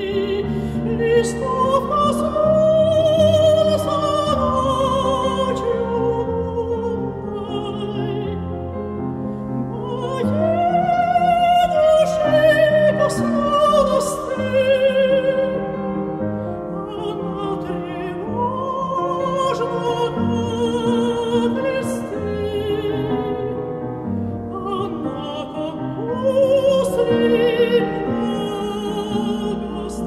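A dramatic soprano sings a Russian romance with wide vibrato in long, arching phrases over piano accompaniment, rising loudest about halfway through.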